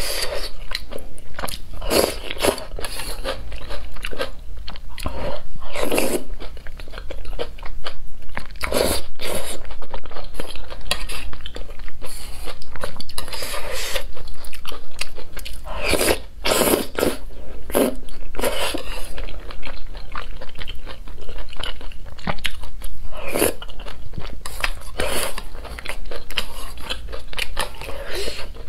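Close-miked eating of thick noodles and chunks in spicy red sauce: chewing and biting in quick, irregular mouthfuls, with crunchy bites.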